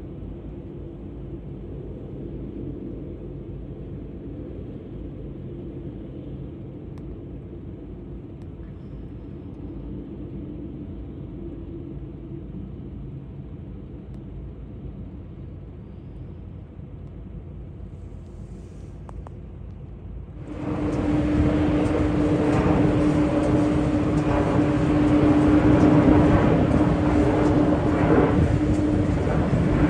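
Steady low rumble of a taxiing Boeing 747-8's four GEnx jet engines. About two-thirds of the way in it cuts abruptly to the much louder, fuller sound of a Boeing 787 Dreamliner's jet engines running, with a steady hum.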